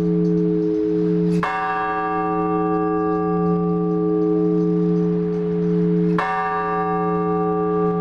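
Large Orthodox church bell struck twice, about five seconds apart, its deep hum ringing on between and under the strokes: the slow, measured single strokes of a blagovest.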